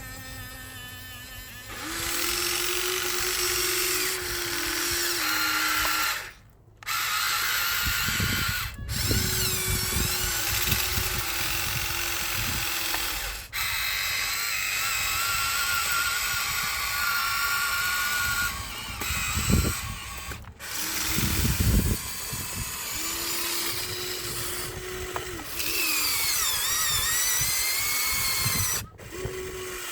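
Electric motors of a Huina 1593 RC excavator whining in runs of a few seconds, the pitch stepping up and down as the arm, bucket and turntable move. There are low rumbling bursts between the runs, and the sound cuts off abruptly several times.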